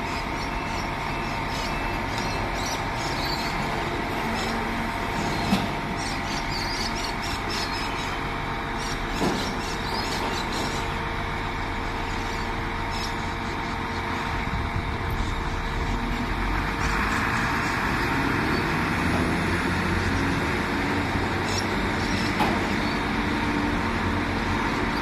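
Truck engine running steadily, powering a truck-mounted knuckle-boom crane as it lifts a bundle of steel wall frames off the trailer. A few sharp knocks come through, at about five seconds, nine seconds and near the end.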